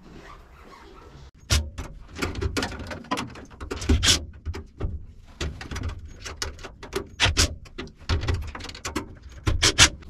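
Irregular knocks, clicks and clatter of hand tools and metal parts against a truck cab's sheet-metal dash and door panels.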